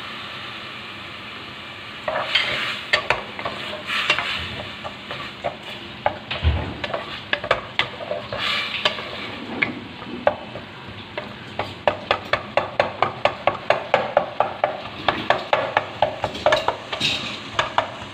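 Wooden spatula stirring and scraping onion-tomato masala frying in oil in a pot, over a steady sizzle. The strokes come irregularly at first, then settle into a quick rhythm of about three a second in the second half.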